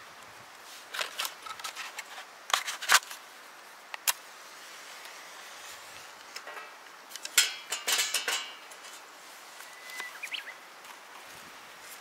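Objects being handled: irregular sharp clicks, light rattles and short bursts of rustling, with a busier cluster of clicks and rustles around the middle. A brief high chirp sounds about ten seconds in.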